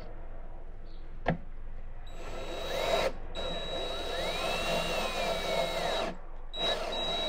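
A single click, then a cordless drill/driver turning the amp's chassis screws in three bursts, the middle one the longest, its motor whine rising and then falling.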